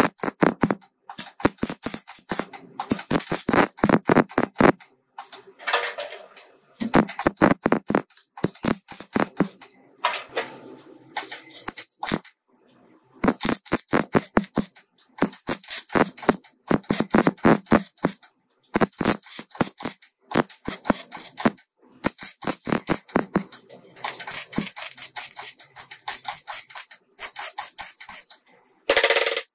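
Rapid series of sharp taps or clicks in bursts of a few seconds, with short pauses between the bursts.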